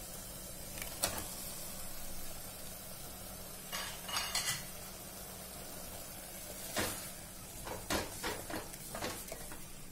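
Onions frying in ghee in a pressure cooker pan with a faint, steady sizzle, while a wooden spatula stirs and knocks against the pan. Tomato purée is added and stirred through, with a run of spatula knocks in the second half.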